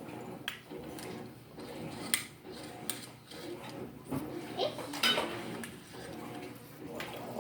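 Light clicks and clinks at irregular intervals, about five in all, over a steady low hum.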